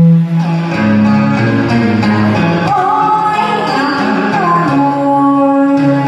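A singer performing a Vietnamese song into a microphone over a guitar-led accompaniment, the voice holding long, wavering notes.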